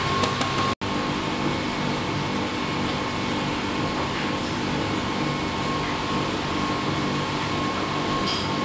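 Steady mechanical whirring hum with a hiss over it, even throughout; it cuts out for an instant about a second in.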